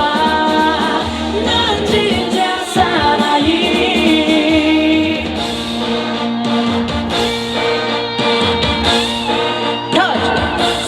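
Live band music over a concert sound system, with singing, as a song plays on to its close.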